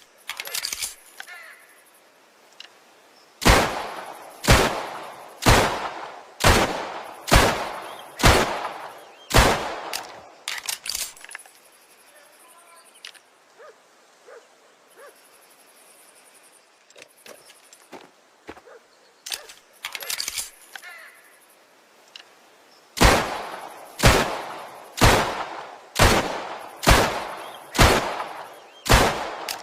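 1911 pistol fired in two strings of seven shots, about one shot a second, with a long pause between the strings. Fainter clicks and handling noises come between the strings.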